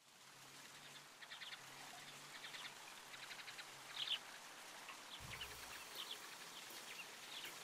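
Faint meadow ambience: birds chirping in short repeated phrases over a soft hiss, with a low rumble coming in about five seconds in.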